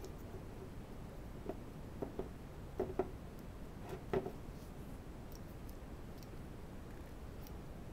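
Light clicks and knocks from handling a small flexible magnetic base dial-indicator holder, its jointed arm and knobs moved in the hand. Half a dozen scattered clicks fall in the first half, the loudest about four seconds in, then only faint ticks over low hiss.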